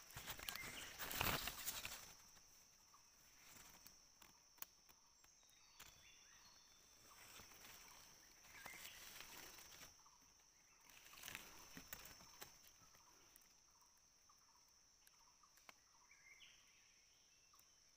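Near silence: a few faint soft rustles and small clicks over a steady thin high hiss.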